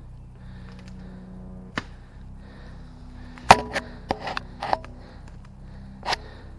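Airsoft rifle firing single shots: sharp snaps, one about two seconds in, a quick run of five or so a little after the middle, and a last one near the end.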